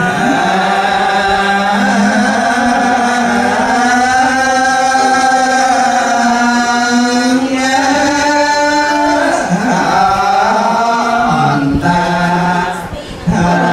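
A man's voice chanting in long, drawn-out melodic lines, Buddhist recitation style, each note held and sliding slowly in pitch, with a short breath break about 13 seconds in.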